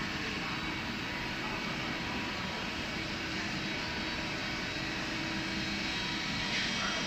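Steady running noise of machine tools such as CNC lathes in a workshop, with a constant hum tone and a short rising whine near the end.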